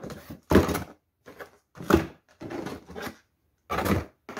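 Handling noise from unpacking: plastic-packed wax bars and packaging rustling and knocking as they are taken out of a cardboard box, in about five short bursts with brief silent gaps.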